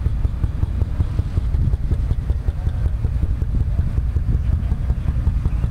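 An engine running steadily with a low rumble, pulsing quickly.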